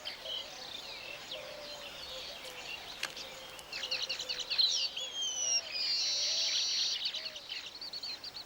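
Weaver birds chattering with quick high chirps, busiest about four seconds in, then two falling whistles and a buzzy trill about six seconds in.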